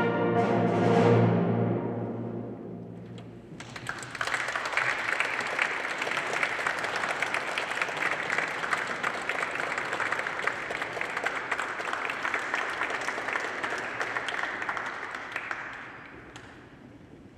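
A wind band's closing chord dying away in the first couple of seconds, followed after a short gap by the congregation applauding for about twelve seconds before the clapping fades out.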